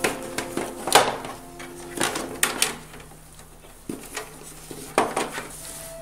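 Irregular sharp clicks and knocks of hard plastic parts being handled on an air conditioner's indoor unit during removal, a handful of them with gaps in between, over faint steady tones.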